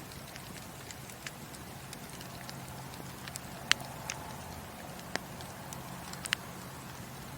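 Wood fire burning in a fireplace: a steady low hiss with scattered sharp crackles and pops, the loudest about a third and two-thirds of the way through.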